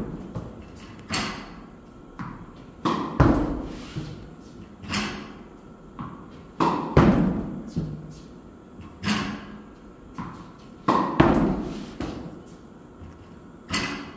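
Tennis racket striking tennis balls in repeated backhand practice, one shot about every two seconds. Some hits come as a close pair of knocks, the ball's bounce just before the strike.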